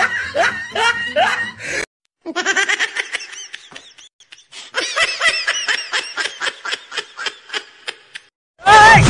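Music with laughter cuts off about two seconds in. After a short silence, high-pitched giggling laughter comes in quick pulses for about six seconds. Loud music starts again at the very end.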